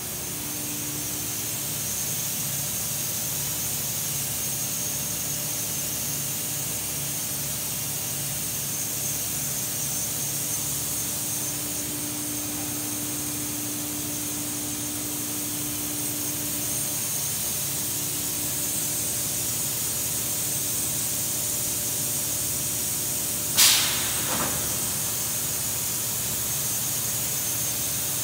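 Rotary thermoformer's carousel indexing around: a steady hiss of air with a low motor hum that comes and goes, strongest midway through. Near the end come two sharp knocks a little under a second apart.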